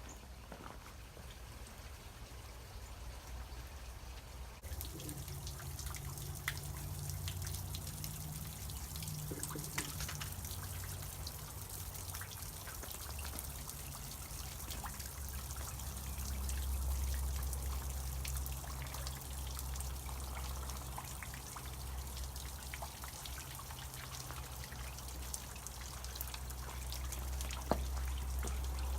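Water trickling and dripping, with many small drips. It grows louder about five seconds in, over a steady low rumble.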